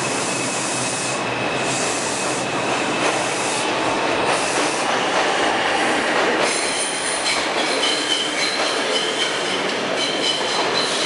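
An R142 subway train pulling out of the station with a steady rolling rumble. From about six seconds in, high-pitched wheel squeal joins it as the cars run through the curve.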